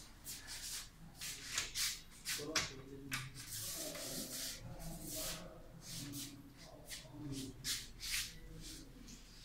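Clicks, rattles and rubbing as the metal ring handles and lock of a glass-fronted wooden cabinet are worked and one door is pulled open.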